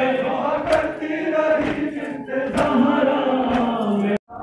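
Crowd of Shia mourners chanting a Muharram lament (nauha) together, with sharp slaps of matam chest-beating about once a second; the audio cuts out briefly just before the end.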